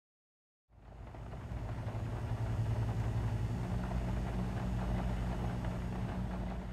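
A steady low rumbling drone with a deep hum, fading in about a second in.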